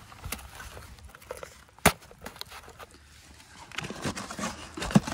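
Handling noise from a cardboard toy box being moved and set upright in snow: scattered soft rustles and taps, with one sharp click about two seconds in and a few more small taps near the end.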